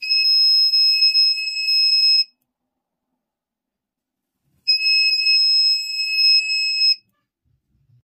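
Electronic buzzer of a homemade laser tripwire alarm giving a steady high-pitched tone twice, each time for a little over two seconds, with a silent gap between. It sounds when a hand blocks the laser beam falling on the circuit's light sensor.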